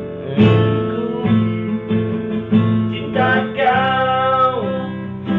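Acoustic guitar strummed in a steady rhythm. About three seconds in, a man's voice comes in over it, singing a held, wavering note for a second or so.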